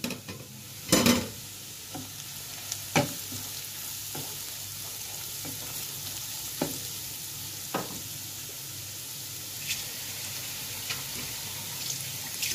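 Fried onions sizzling in oil in a non-stick frying pan as a spatula stirs in ginger and garlic powder, with a steady hiss and occasional sharp taps and scrapes of the spatula against the pan, the loudest about a second in.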